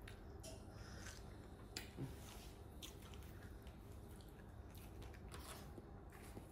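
A toddler biting into and chewing a fresh strawberry: faint mouth sounds and small scattered clicks over low room noise.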